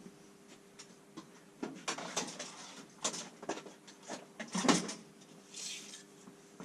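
Small hand tools being handled and put down on a hard surface: scattered clicks and knocks, the sharpest about three seconds in and again near five seconds, with a brief rustle near the end.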